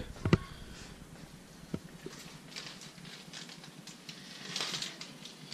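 Faint rustling with light clicks: a sharp click just after the start and another a little under two seconds in, then two soft spells of rustling, the second, near the end, the louder.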